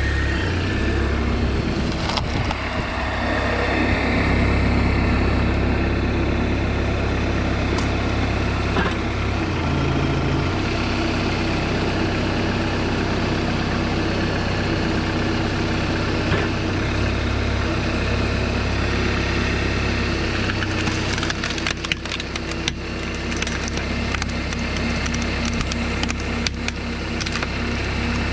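A homemade tractor's engine runs steadily, driving a hydraulic log splitter, while its ram forces logs onto the wedge and the wood cracks and splinters apart. A run of sharp cracks and crackles comes near the end.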